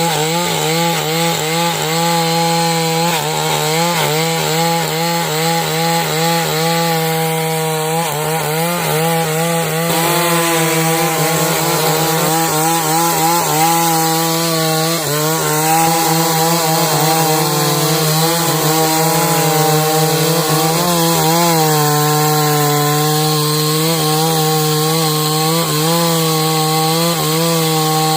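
Chainsaw running at full throttle while cutting timber lengthwise into beams, its engine note steady with slight dips as the chain bites into the wood.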